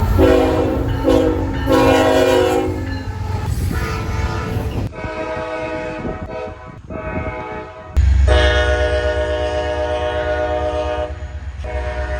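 Train air horns sounding a run of blasts, some short and clipped, others held for several seconds, over the low rumble of the passing train. The sound changes abruptly about five and eight seconds in as one horn gives way to another.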